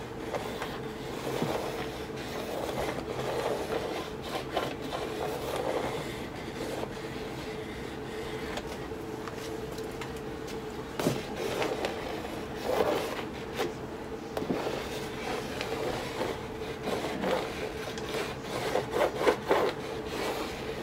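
Sponge-tipped acrylic ink marker rubbing and scraping across a canvas textured with modeling paste, in short irregular strokes with a few sharper taps. A steady low hum runs underneath.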